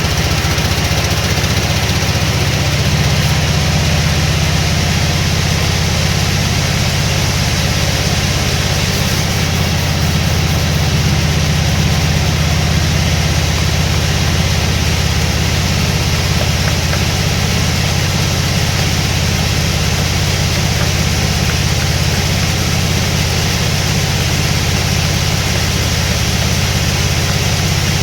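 Sawmill machinery running steadily with a loud, even low hum and a hiss over it, no change in load.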